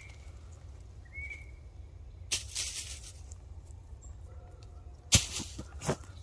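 Dry leaf litter rustling and crunching as hands rummage in it and pick something up off the forest floor, with a sharp snap about five seconds in, the loudest sound. Two short high chirps come in the first second or so.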